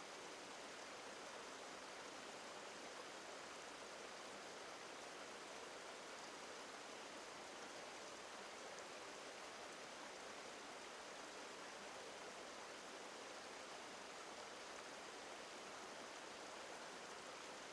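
Faint, steady rush of a flowing river, with no splashes or changes.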